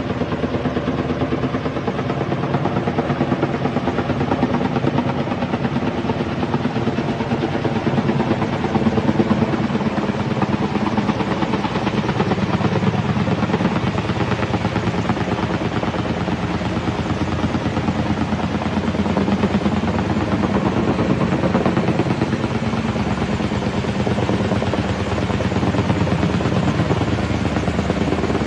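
Helicopter flying overhead with a load slung beneath it, its rotor beating in a fast, steady pulse over a steady engine tone.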